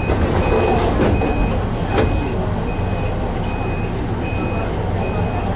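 A short, single-pitched electronic beep repeating about every three-quarters of a second over a steady low rumble, with a few sharp clicks in the first two seconds.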